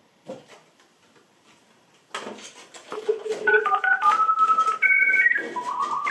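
Quiet for about two seconds, then a short electronic jingle begins, its notes stepping up and down in pitch.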